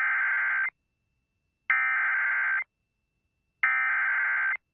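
Emergency Alert System SAME header: three bursts of two-tone digital data, each about a second long and a second apart, the first already under way. This header is what opens an EAS message and encodes the alert, here a flash flood warning.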